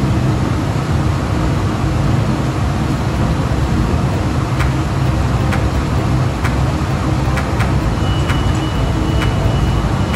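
Steady heavy rumble of steel-mill equipment as an overhead tong crane lifts a glowing-hot slab out of an open reheating furnace. Scattered sharp clicks begin about four seconds in, and a thin high steady tone joins near the end.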